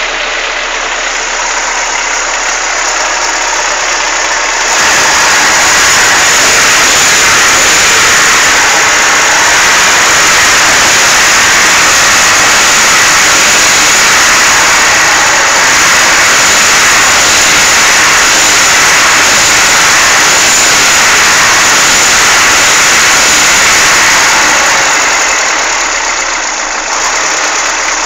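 Chevrolet Monza's four-cylinder engine running warm at a steady idle with a fast, even ticking clatter, louder from about five seconds in until near the end. The owner hears it only once the engine is hot and suspects either a lifter (tappet) noise or piston slap.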